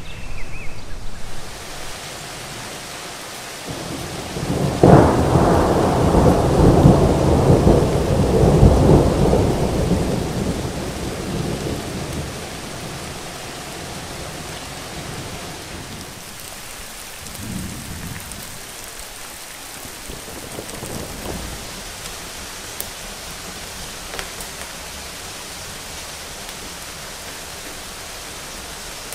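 Thunderstorm with steady heavy rain. A clap of thunder breaks about five seconds in and rolls on for several seconds before fading, and fainter rumbles of thunder come later.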